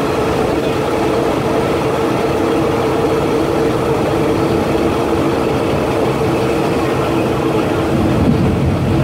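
Passenger train running, heard through an open carriage window: a steady loud rumble of wheels and engine with a constant hum.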